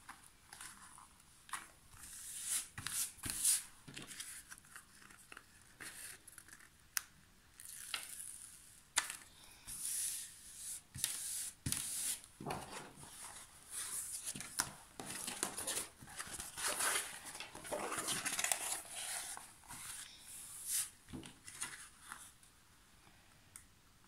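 Rustling and crinkling of a diamond-painting canvas and its printed protective sheet being handled and flattened by hand, in irregular spells with short sharp crackles, busiest around the middle.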